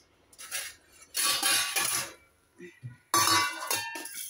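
Metal kitchenware clattering and ringing: two loud clanks about two seconds apart, each ringing on for about a second.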